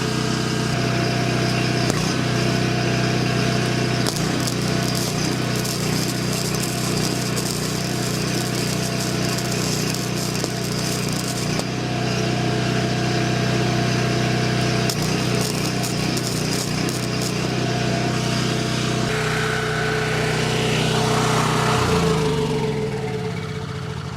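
Portable generator engine running at a steady pitch under load, with the crackle of flux-cored wire MIG welding over it for roughly the first half. Near the end the engine's pitch falls as it slows down.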